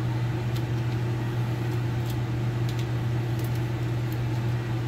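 Vent hood blower running with a steady hum, with a few faint clicks over it.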